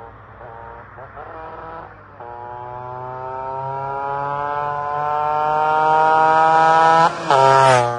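Vespa scooter with a Quattrini 144 cc two-stroke kit accelerating toward and past, its engine still a little cold. It climbs quickly through the gears in the first two seconds, then holds one long rising engine note that grows steadily louder. It passes close about seven seconds in, and the pitch drops.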